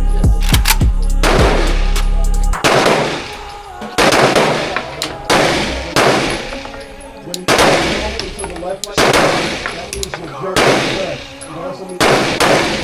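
Background music with a steady beat that cuts off about two and a half seconds in. It is followed by about nine gunshots fired one at a time, roughly one every second or so, each ringing out.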